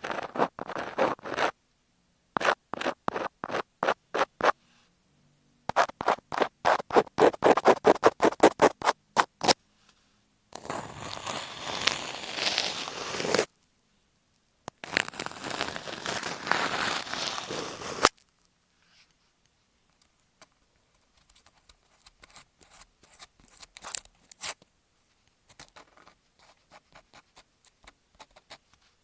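Scratching on masking tape stuck over an EarPods earphone microphone, close-up and a little rough. It comes as bursts of quick strokes, then two longer stretches of steady rubbing, then fainter, sparser scratches in the last third.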